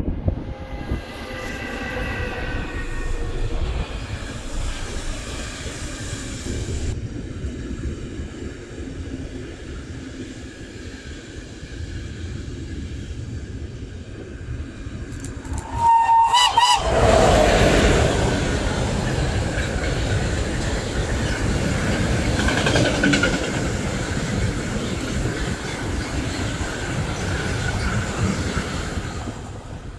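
A train approaches, with a whine of several tones falling slightly in pitch over the first few seconds. About sixteen seconds in, the horn gives a short blast of about a second. Then the train passes close by with a loud rush and wheel clatter on the rails.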